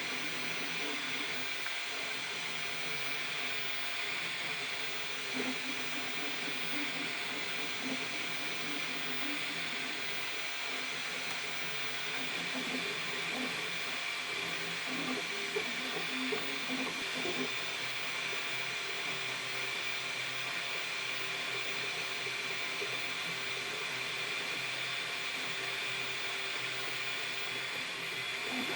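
Flashforge Finder 3D printer running: a steady fan hiss, with the stepper motors whirring in short tones that change pitch as the head moves.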